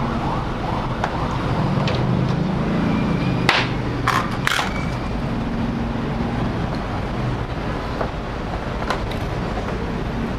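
Steady low rumble with a wavering hum, like traffic passing, and a few sharp clicks, two or three close together about three and a half to four and a half seconds in.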